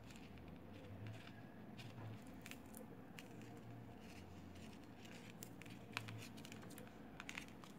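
Faint clicks and light rustling of beads being handled and threaded onto a line, with a slightly sharper click about six seconds in and two small ones a second later.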